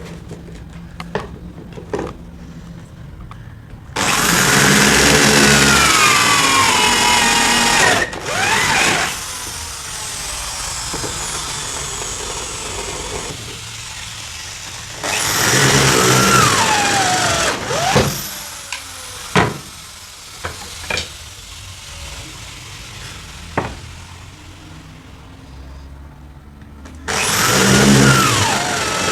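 An electric woodworking power tool run in three short bursts of a few seconds each, its motor whine sweeping high and then falling in pitch. Knocks and taps on wood come between the bursts.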